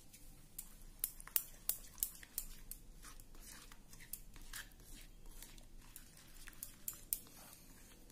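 A spoon mixing a thick, oily mustard-seed spice paste in a metal bowl: light clicks of the spoon against the bowl at irregular intervals, a few each second.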